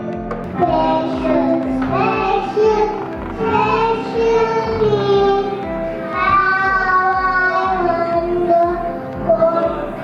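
Children singing a song together over backing music with a steady beat.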